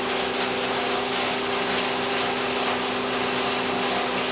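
Williams shredding mill running steadily, a constant machine noise with a steady hum, as mixed refuse of plastic, paper and wood is tipped into its feed hopper for a test run.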